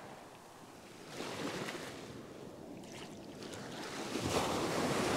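Ocean surf breaking and washing up the beach in the shallows. A louder wave comes in about four seconds in.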